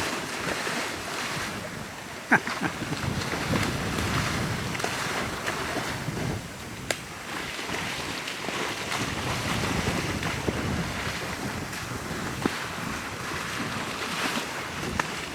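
Wind buffeting the microphone, with the sloshing of water running through it and a couple of sharp clicks.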